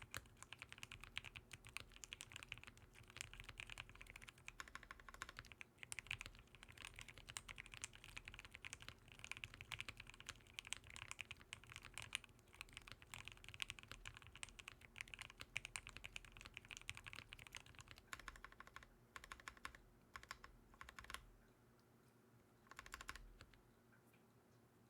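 Fast, continuous typing on a custom-built mechanical keyboard, a dense run of key clacks that stops a few seconds before the end, with one short burst of keystrokes after the pause.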